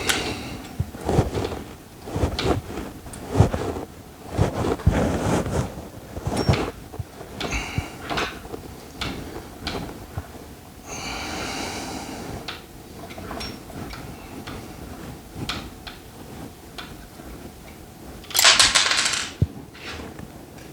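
Clicks, knocks and metal-on-plastic clatter of hand work on an Echo 4910 chainsaw's clutch side as the chain brake is worked off, with a longer noisy stretch about eleven seconds in and a short loud rattling burst near the end.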